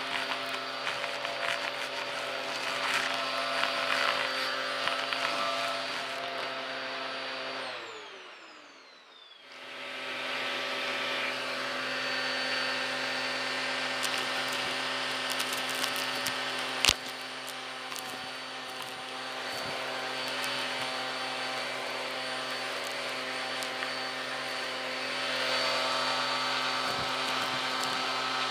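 Vacuum cleaner motor running with a dusting-brush attachment, sucking up dust and grit from a rug. About eight seconds in the motor's whine slides down in pitch as it winds down and stops, then starts up again a second or so later. A single sharp click comes near the middle, and the hiss grows louder near the end.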